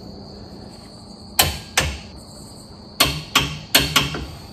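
A series of sharp knocks as he works at the truck's rear hitch: two about a second and a half in, then four in quick succession about three seconds in. Crickets chirp steadily behind them.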